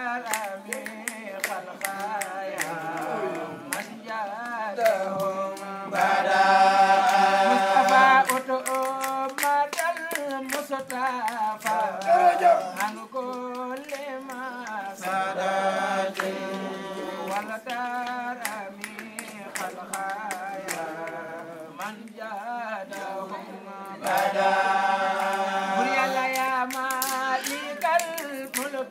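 Voices chanting a melodic Islamic devotional song, swelling louder twice, with frequent sharp clicks.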